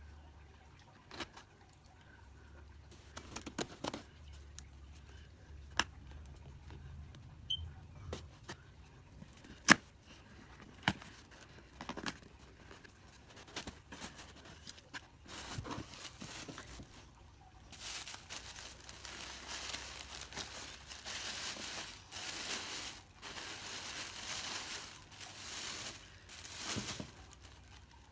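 A taped cardboard mailing box being opened by hand: scattered sharp clicks and knocks of scissors and cardboard handling, one loud snap about a third of the way in, with tape being cut and torn. From a little past halfway, a long run of tissue paper rustling and crinkling as it is unfolded.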